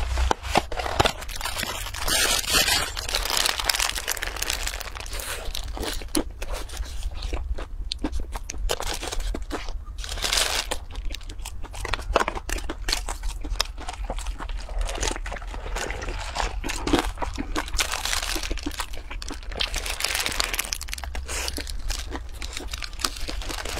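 Close-miked mukbang eating: crunchy bites and chewing of a burger, mixed with crinkling of its paper wrapper and the packaging. About two seconds in, a loud burst of crinkling as the packaging is handled.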